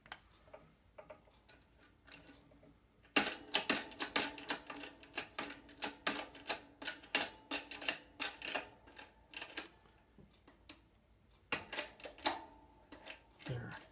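Hydraulic shop press bottle jack being pumped by hand: a run of sharp metallic clicks, about three a second, starting about three seconds in and lasting several seconds, then a shorter run near the end. The press is pushing a universal joint bearing cap deeper into the drive shaft yoke so the groove for its retainer clip shows.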